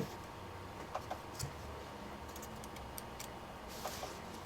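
Scattered light clicks and taps as a small laptop power jack is handled and clipped into a helping-hands clamp, over a faint steady hum.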